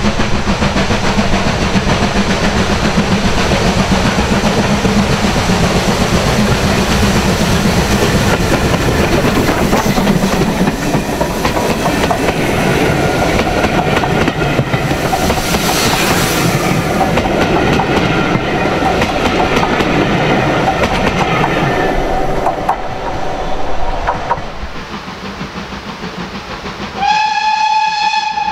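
Steam locomotive and its coaches passing close by: a continuous loud rumble with wheel clatter, and a burst of hissing steam about halfway through. Near the end a steam whistle gives one steady blast.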